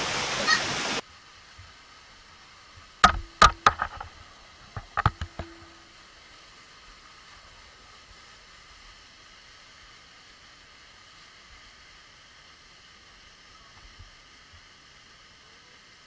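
Waterfall rushing loudly, cut off abruptly about a second in. A quiet steady hiss follows, broken by two quick clusters of sharp knocks about three and five seconds in.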